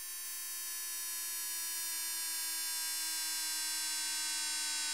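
Amiga Protracker chiptune: a sustained chord of steady synthesized tones with no percussion, slowly growing louder.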